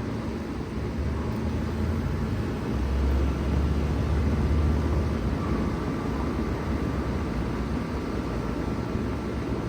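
Bard 2-ton wall-hung heat pump running in cool mode: a steady whoosh of fan air over a low compressor hum, swelling a little louder for a couple of seconds about three seconds in.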